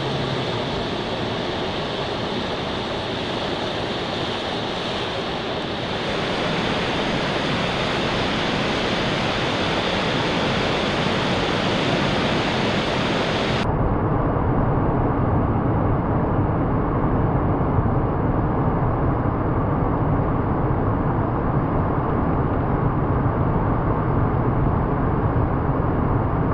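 Ocean surf washing onto the beach, a steady rush of breaking waves. About halfway through it turns duller and deeper.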